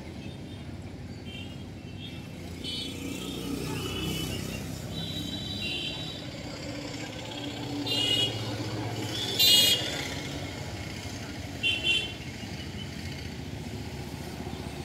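Steady hum of passing road traffic, with a string of short high-pitched sounds over it, the loudest about nine and a half seconds in.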